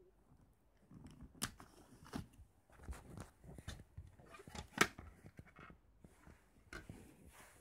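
Plastic CD jewel case being handled and closed: scattered light clicks and taps on the hard plastic, with the loudest click about five seconds in as the lid snaps shut.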